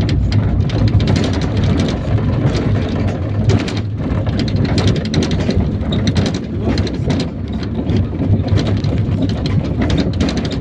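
IVECO Daily minibus on the move: a steady engine and road rumble, with frequent rattles and knocks from the body and fittings.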